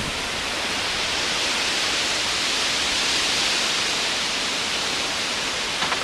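Storm noise of wind and rain rushing through leafy trees: a steady hiss that swells about midway through and eases off again, with no siren tone heard. A brief knock sounds near the end.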